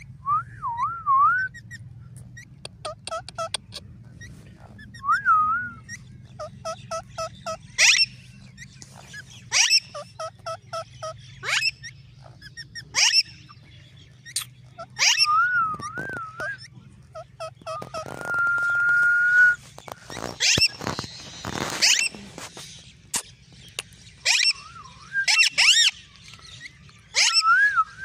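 White Indian ringneck parakeet calling: wavering warbled whistles, quick runs of short repeated pips and sharp chirps. About two thirds of the way through comes one long held whistle, followed by a couple of seconds of harsh screeching.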